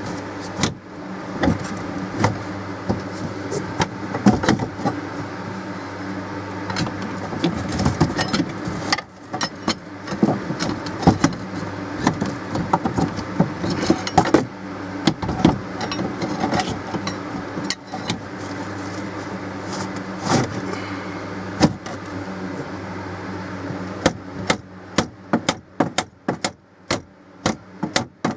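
A hammer knocking repeatedly on the steel lift bracket of a pop-up camper's electric lift mechanism, over a steady machine hum. Near the end the knocks give way to a fast run of small clicks.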